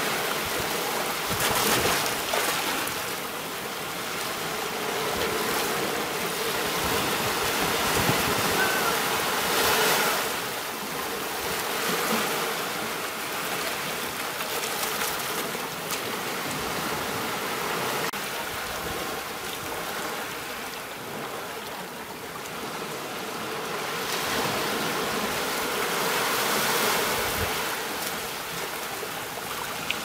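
Small ocean waves washing onto the shore: a steady rushing wash of surf that swells and eases in slow surges every several seconds.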